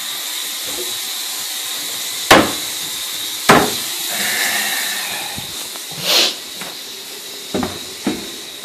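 Steady hiss of a faucet left running into a sink and draining through the pipes below, slowly fading, with two sharp knocks about two and three and a half seconds in and a few smaller bumps near the end.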